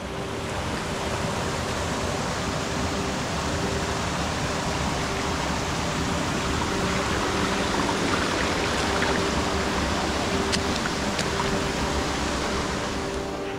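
Shallow mountain stream rushing over pebbles and small cascades: a steady wash of running water.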